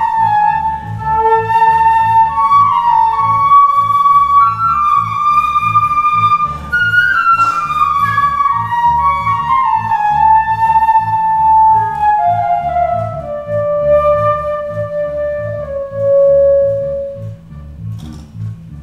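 Live trio of flute, accordion and electric bass: the flute plays a melody that winds downward and settles on a long held low note, then drops out near the end, over a steady pulsing bass line.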